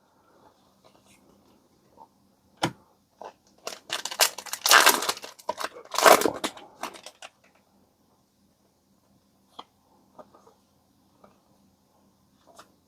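Foil booster-pack wrapper crinkling and being torn open, in a loud crackling cluster about four to seven seconds in, with scattered light clicks of cards being handled around it.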